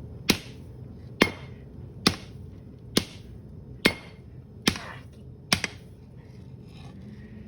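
Big hammer striking hot steel on an anvil, forging a blade: seven evenly paced ringing blows, a little under one a second, stopping about two seconds before the end.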